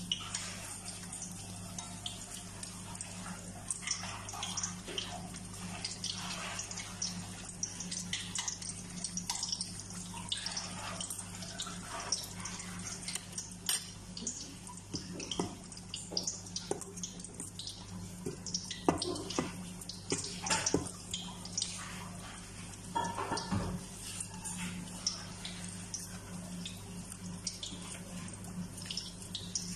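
Moringa-leaf omelette patty frying in hot oil in a stainless steel pan: a steady sizzle with many small crackling pops, a few louder pops after the middle, over a steady low hum.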